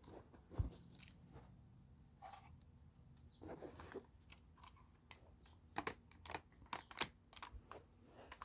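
Faint, scattered clicks and light knocks of plastic Lego pieces as the brick-built rifle is handled, with a soft thump about half a second in and a run of quick clicks near the end.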